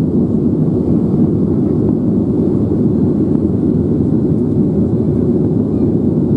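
Steady cabin noise inside a Boeing 737-800 climbing after takeoff: its CFM56-7B engines and the rushing air heard through the fuselage as a deep, even rumble with little treble.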